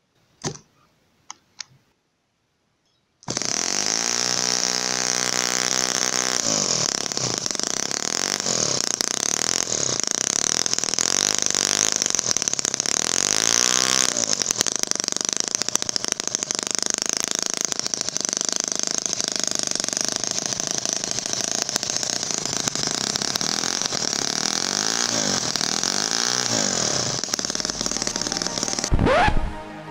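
A few clicks, then a 3.5 cc four-stroke gasoline model stationary engine runs at high speed from about three seconds in, its revs rising and falling several times as the throttle is worked. It cuts off just before the end.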